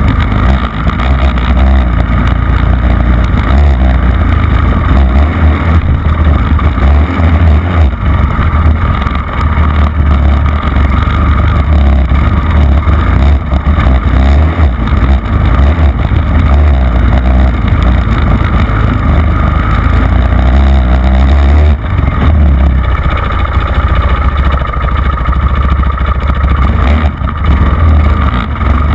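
Dirt bike engine revving up and down as the bike is ridden, heard from a camera mounted on the bike, with heavy wind rumble on the microphone.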